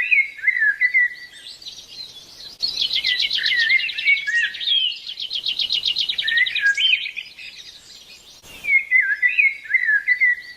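Birds singing: short whistled notes that bend up and down, and a fast trill of rapidly repeated notes from about two and a half to six seconds in.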